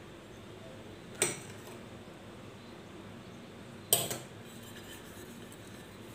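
Two sharp metallic clinks of a spoon and stainless steel tea cups being handled while the cups are greased with oil, about a second in and again about four seconds in, the second ringing briefly.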